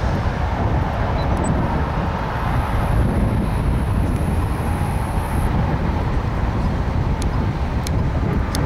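Steady low rumble of BNSF diesel-electric freight locomotives moving slowly at the head of their train, with a few faint clicks near the end.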